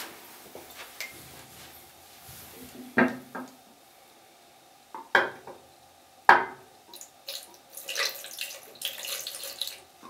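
Ultrasonic mist maker agitating the water in a glass, with water spattering and plopping in a few sharp splashes. Near the end come a quick run of splashes and glass clinks as the glass is handled.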